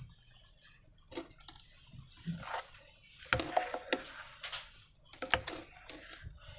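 Slime being handled, making irregular sticky squelches and small clicks, busiest in the middle.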